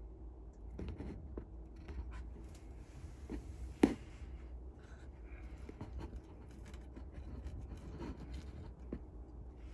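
Light scratching and scattered small clicks, with one sharper click about four seconds in, over a low steady hum.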